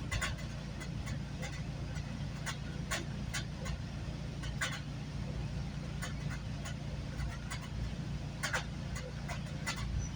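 GO Transit commuter train running, heard from inside the coach: a steady low rumble with irregular sharp clicks and rattles.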